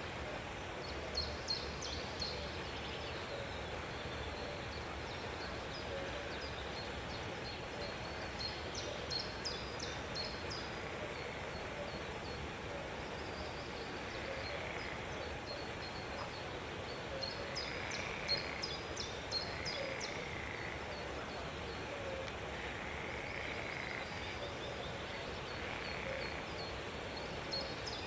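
Captive birds chirping in short clusters of rapid high notes, a few seconds apart. Several lower arched calls come in the second half, all over steady background noise.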